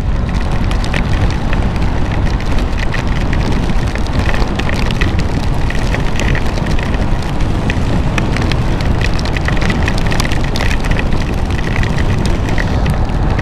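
Loud, steady wind rush over a rider's helmet and microphone on a motorcycle at road speed in a downpour, with many sharp ticks of raindrops striking the helmet.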